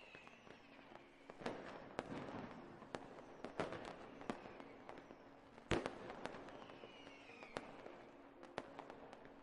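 Fireworks going off at a distance: scattered bangs and crackling pops, with one louder bang a little past halfway and a short falling whistle about two thirds of the way in.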